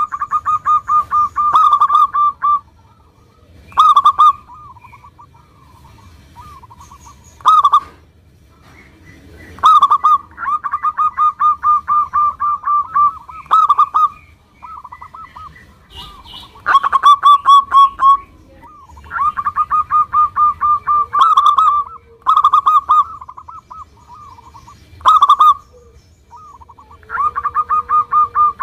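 Zebra dove (perkutut) cooing: repeated bouts of rapid, evenly spaced notes, each bout a second or two long and opening with a louder note, with quieter calls between the bouts.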